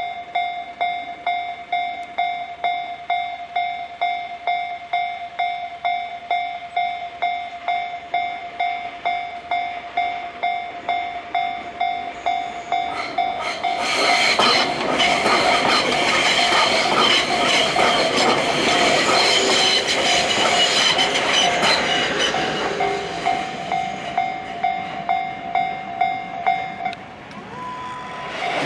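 Japanese level-crossing warning bell ringing in a steady, even rhythm, about two strokes a second. About 13 seconds in, an electric Tobu train passes over the crossing with its wheels clattering over the rail joints for about ten seconds. The bell stops near the end.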